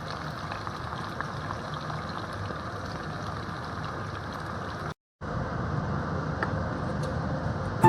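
Jackfruit sabzi cooking in a pan, a steady sizzle and bubble with faint crackles. It breaks off to silence for a moment about five seconds in, then goes on.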